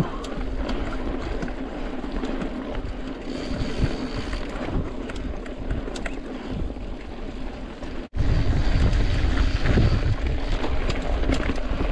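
Cross-country mountain bike being ridden on dirt singletrack: tyres rumbling over the dirt, small clicks and rattles from the bike, and wind on the microphone. About eight seconds in, the sound cuts out for an instant and comes back louder, with heavier low wind buffeting.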